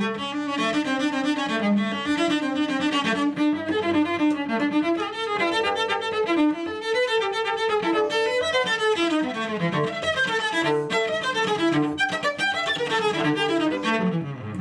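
Solo cello played with the bow: a continuous, fast-moving line of notes that climbs and falls across the instrument's registers.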